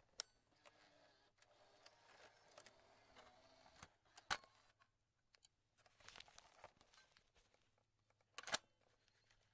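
Cassette tape player's eject mechanism: three sharp plastic clicks about four seconds apart, with softer rattling of a plastic cassette being handled in between.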